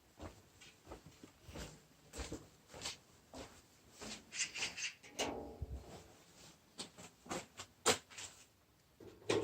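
Irregular knocks and clicks, with a short squeak about five seconds in.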